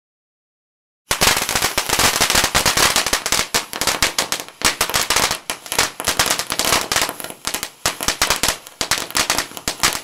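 Fireworks crackling: a dense, rapid string of sharp cracks, like a string of firecrackers going off, starting suddenly about a second in.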